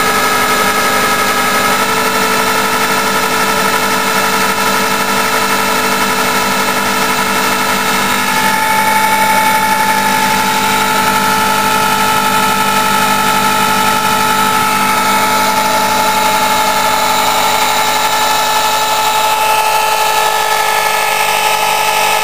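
Bosch CSB 550 RE corded electric drill running steadily, spinning a DC treadmill motor used as a generator through a duct-taped shaft coupling. The whine changes and grows a little louder from about eight seconds in.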